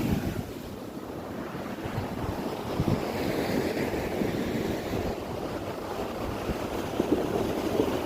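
Steady rushing noise with a low rumble, like wind or water, with no distinct events standing out.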